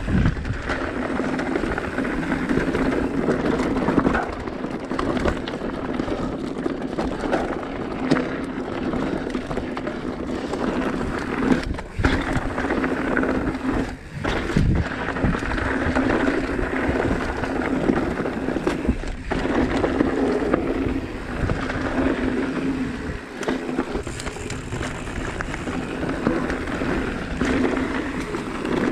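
Mountain bike riding over a rocky trail: a continuous rough rolling and rattling noise with frequent knocks, easing in a few brief lulls.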